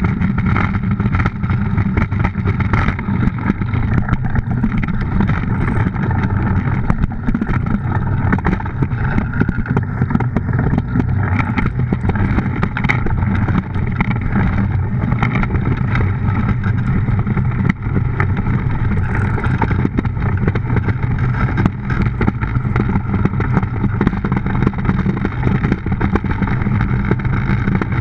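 A DN iceboat sailing fast: its steel runners on the ice make a steady, loud rumble with a low hum, mixed with wind on the microphone.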